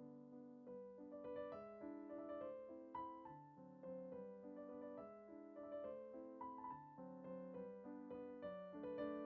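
Soft background piano music, a gentle melody over steady chords.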